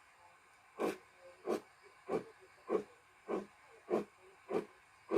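Recorded BR Standard Class 9F steam exhaust played by a DCC sound decoder through a model locomotive's small speaker: deep chuffs start about a second in and repeat evenly, about one and a half a second.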